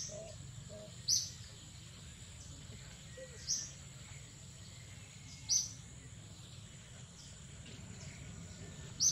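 A forest bird repeating a short, high chirp every one to two seconds, over a steady high thin whine and low background hum.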